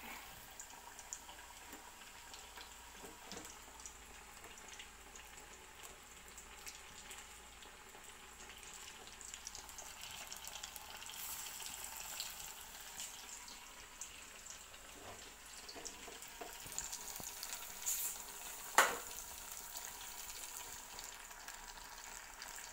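Ripe plantain slices in gram-flour batter deep-frying in hot coconut oil, a steady sizzle and bubbling. A single sharp click near the end.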